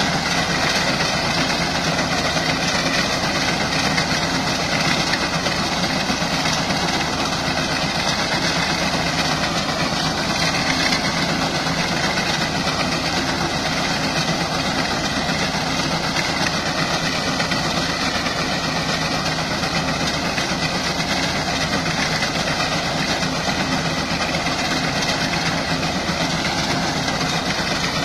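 Farm tractor running steadily under load as its front-mounted reaper cuts standing wheat: a continuous, even engine drone with no change in speed.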